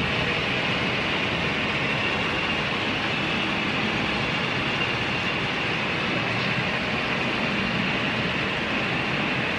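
Model freight train rolling past on a layout's track: a steady rolling noise of many small wheels on rail.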